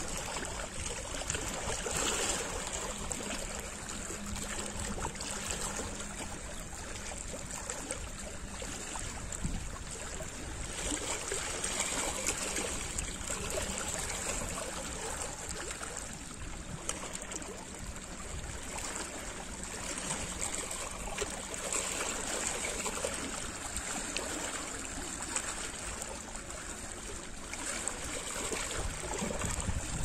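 Small lake waves lapping and washing against the rocks of a stony shoreline, a steady splashing that swells and eases every several seconds.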